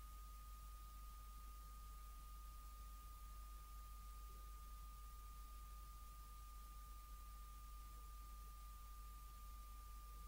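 Near silence: room tone with a faint steady high whine and a low hum.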